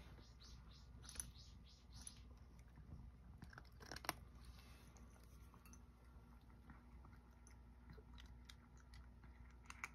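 A cat eating dry kibble from a bowl: a run of faint crunches, closer together in the first two seconds, with one sharper crunch about four seconds in.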